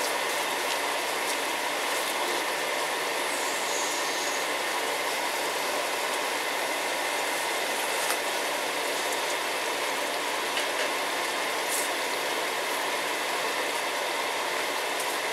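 Sliced shiitake mushrooms sizzling and bubbling steadily in butter, oil and soy sauce in a hot wok, with a few faint taps of the wooden spatula against the pan.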